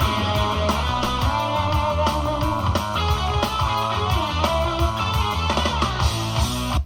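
Rock music with electric guitar and drums playing through an Anker Soundcore Motion+ portable Bluetooth speaker; the track cuts off suddenly at the very end.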